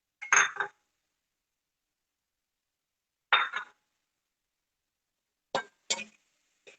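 Cooking spoon clinking against a pan while vegetables are stirred in it, five short separate clinks spread over several seconds.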